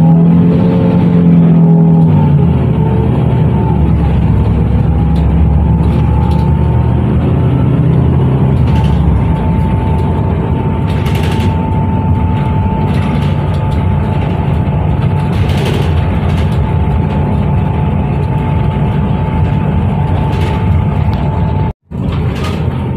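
Transjakarta bus in motion, heard from inside the cabin: a steady engine and road rumble with a steady high hum running over it. The sound cuts out completely for an instant near the end.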